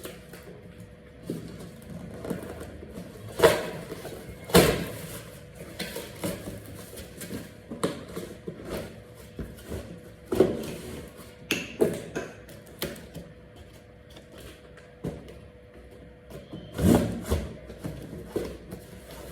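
A cardboard box being opened and its packaging handled: irregular rustling and scraping broken by sharp knocks, with the strongest knocks a few seconds in, about halfway through and near the end.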